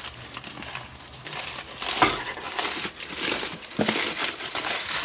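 Aluminium foil crinkling and rustling as it is peeled off a wrapped pork shoulder, with sharper crackles about two seconds in and again near four seconds.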